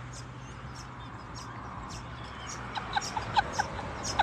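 A woman's short, high-pitched whimpering squeaks and gasps, growing louder in the second half, as she reacts to a straight shot of Jim Beam bourbon burning her throat. A low steady hum underneath stops about halfway.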